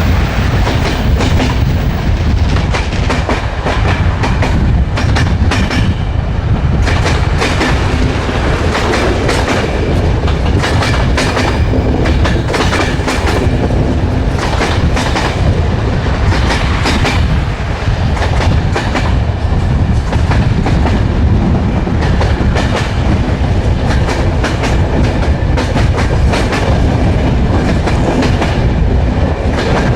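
Railway carriage wheels running over the track: a steady low rumble with the repeated clickety-clack of the wheels crossing rail joints.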